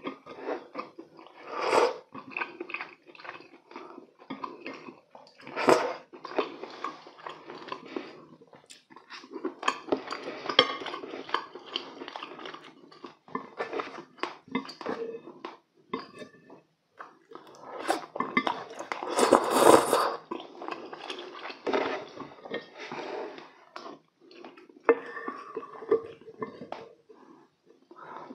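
Close-miked eating of braised chicken (jjimdak): chewing mouthfuls, with chopsticks and a spoon clicking against the serving dishes. There are several louder bursts of chewing noise, the longest around twenty seconds in.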